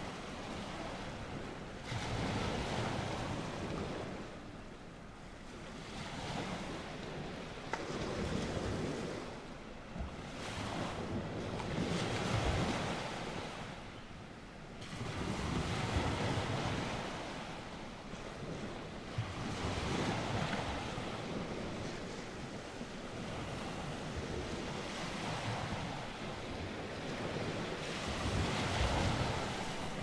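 Ocean waves washing in slow surges that swell and ease every few seconds.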